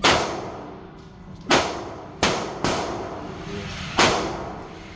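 Five gunshots at uneven spacing, each a sharp crack with a long echoing ring in an indoor shooting range. The fourth shot is weaker than the others.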